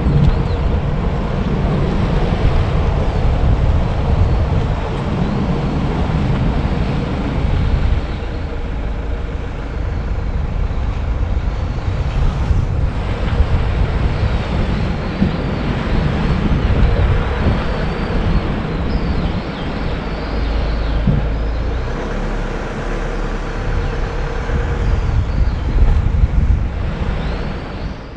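Car driving at low speed: steady engine and tyre rumble with some wind noise on the microphone, fading out at the very end.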